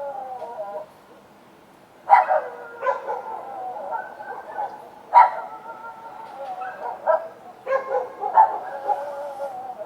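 Several dogs barking, sharp barks over long, drawn-out wavering cries that overlap one another, with a short lull about a second in.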